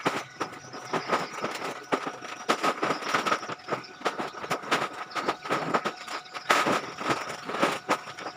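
Irregular rustling and knocking of sacks of plastic waste being handled and thrown onto a load, many short hits in quick, uneven succession.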